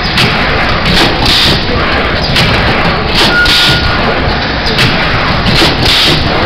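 Mosquito coil stamping machine running, with a recurring hiss about once a second over a loud, steady mechanical din.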